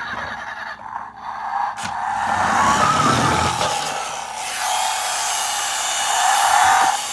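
Toy State Road Rippers Ford F-150 Raptor toy truck running: a continuous loud whir that swells about two seconds in and wavers in pitch.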